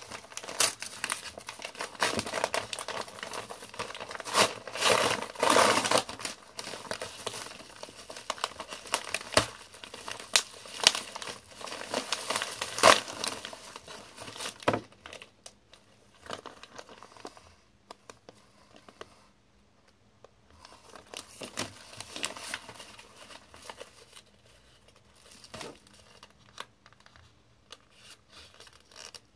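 Packaging being torn open and crinkled by hand while a parcel is unboxed: busy rustling and tearing with sharp crackles for about the first half, then quieter handling with a few scattered clicks.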